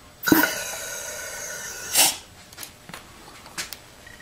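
Compressed air hissing from a rubber-tipped air nozzle pressed into an automatic transmission case passage to air-check the D (low/reverse) clutch. The hiss starts with a thump about a third of a second in and ends with a louder burst of air at about two seconds, followed by a few light metallic clicks.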